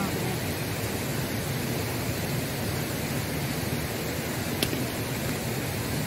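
Steady rushing of a nearby waterfall, with a single light click about four and a half seconds in.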